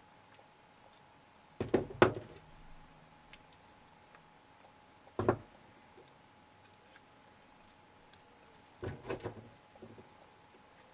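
Small plastic RC-car shock absorbers being handled, compressed and set down on a wooden workbench: short knocks and clatters about two seconds in, again around five seconds and near nine seconds.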